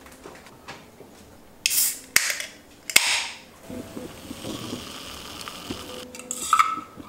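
An aluminium Coke Zero can is opened. After a brief noise of handling, the pull tab cracks sharply about three seconds in, with a short hiss. The soda then fizzes faintly, and a metal straw clinks into the can near the end.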